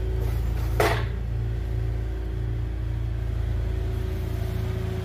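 A steady low mechanical rumble with a constant hum, like a running engine or machine. A short rustling burst comes about a second in.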